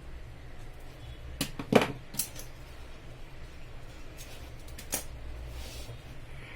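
Sharp snips and clicks of a cutter working a network cable's plastic jacket: a quick cluster of about four about one and a half seconds in, and one more near five seconds, over a steady low hum.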